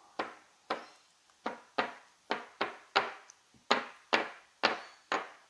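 Casino chips set down one at a time onto the craps layout as they are counted out. Each lands with a short sharp click, about eleven clicks at roughly two a second, unevenly spaced.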